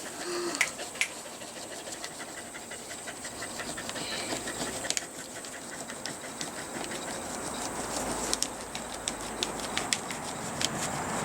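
Crayon rubbed back and forth on paper laid over a leaf, making a leaf print: a scratchy scraping with many quick strokes, busier in the second half.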